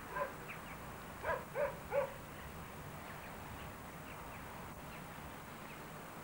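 An animal calling: one short call just after the start, then three short calls in quick succession about a second and a half in, over steady background noise.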